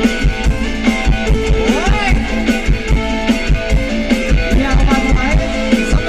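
Live stage band music with a steady, heavy kick-drum beat, played back through a car audio system as a sound test.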